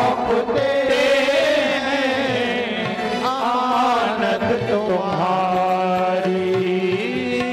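Hindu devotional bhajan music: a steady held drone with a bending, wavering melody line over it.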